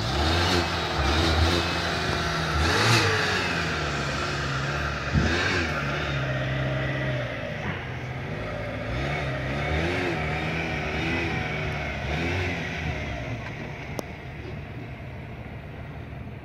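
Truck and car engines running at a queue of waiting vehicles: a steady low hum, with an engine revving up and down and louder surges about 3 and 5 seconds in.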